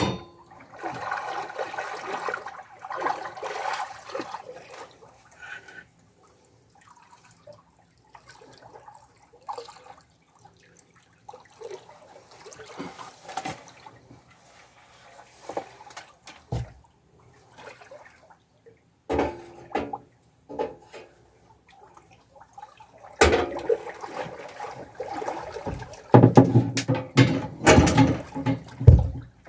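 Water splashing and sloshing in irregular bursts, mixed with scattered sharp knocks, busiest in the first few seconds and again near the end.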